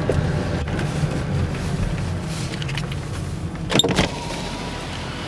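Car driving on a wet road, heard from inside the cabin: a steady low engine and tyre rumble, with a sharp knock a little before four seconds in.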